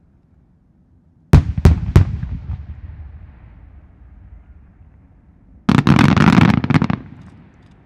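Aerial firework shells bursting. Three sharp booms come in quick succession about a second in, with an echo that fades over a few seconds. Near the end a dense volley of many shells bursts together for about a second.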